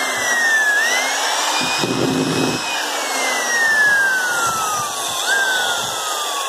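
Makita 330 W hammer drill (Japanese-market, 100 V) running free with no load. Its motor whine rises sharply each time the trigger is squeezed and sinks slowly as it is eased off, several times over. A short lower rumble comes in about two seconds in.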